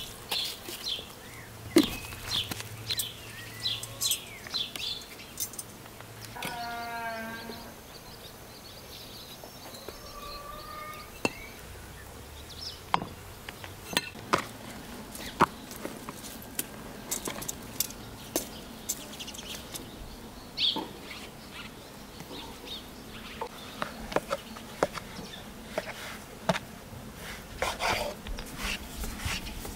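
Birds chirping throughout, with a single bleat from a goat or sheep about seven seconds in and a shorter call a few seconds later. Scattered taps and knocks from hands working dough in a plastic bowl and on a wooden board.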